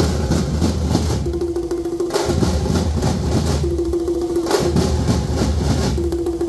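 A thappattam drum troupe: many thappu frame drums struck with sticks, together with a large bass drum, playing a loud, dense rhythm in a phrase that repeats about every two and a half seconds.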